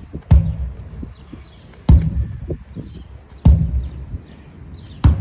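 Sledgehammer striking a large tire four times, about one blow every one and a half seconds, each a sharp crack with a heavy low thud.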